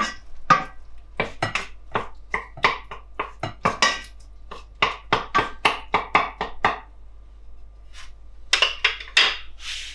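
Wooden spoon knocking and scraping against the side of a stainless steel pot while stirring chopped tomatoes, a quick run of clacks about three a second. After a short pause there are a few more knocks near the end.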